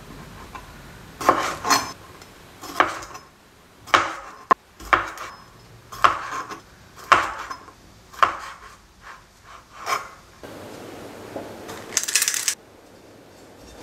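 A chef's knife cutting through Shine Muscat grapes onto a plastic cutting board: about ten sharp knocks at uneven spacing, roughly one a second. About ten seconds in they stop. Near the end comes a brief metallic scrape as a spring-loaded scoop releases a ball of whipped cream.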